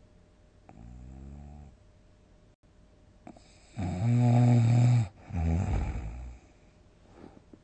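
A sleeping person snoring loudly in a run: a softer snore about a second in, then a much louder pitched snore around the middle, followed at once by a shorter second one, with small breathy sounds near the end.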